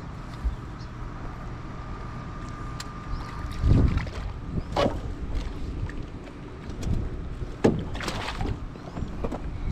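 Small fishing boat on a river: a steady low hum with a faint higher tone that stops about three seconds in, wind on the microphone, and three short knocks later on.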